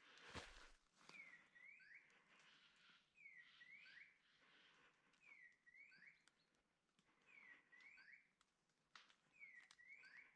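Faint electronic call from a hunting dog's beeper collar: a hawk-like squeal that falls then rises, repeating evenly about every two seconds, the quick pace a beeper gives when the dog stands still on point. A single knock about a third of a second in.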